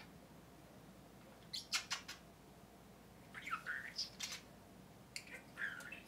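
Budgerigar talking in a tiny, high, buzzy voice, mimicking phrases that read as "are you a bird? ... good bird". It comes in three short bursts, the first a few sharp clicks about a second and a half in.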